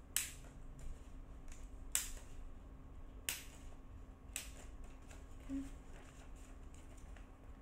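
Steel nail clipper snipping through thick paper, a sharp click with each cut: four loud snips in the first half, with fainter clicks between them.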